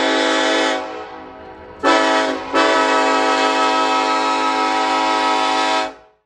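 Train horn sounding a steady chord in three blasts: a long blast that ends about a second in, a short blast around two seconds in, then a second long blast that stops just before the end.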